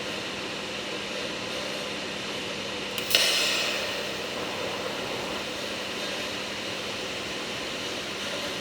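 Steady hum of a TIG welding machine's cooling fan. About three seconds in there is a sharp click, followed by a hiss that fades over about a second.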